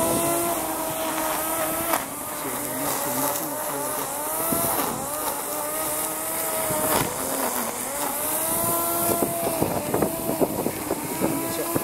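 Grass trimmer (brush cutter) motor running, its pitch sagging and climbing back again and again as it cuts grass.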